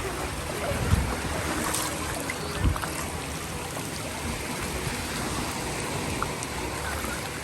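Steady wash of ocean surf on a beach, with two brief low thumps about one second and nearly three seconds in.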